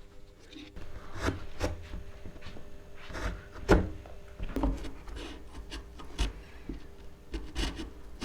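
Small wooden pieces being handled: irregular light knocks and short rubs of wood on wood, the loudest knock about three and a half seconds in.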